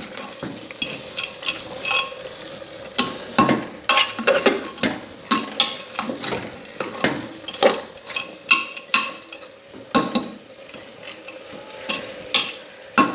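A spoon stirring soaked mixed beans (kwati) with spiced minced meat in a pot, with irregular scrapes and clinks against the pot over a faint sizzle.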